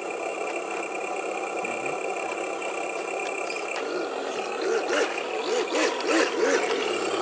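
Electronic engine sound from the Tamiya Unimog RC truck's sound unit, running steadily, then revving up and down in quick repeated blips from about halfway through.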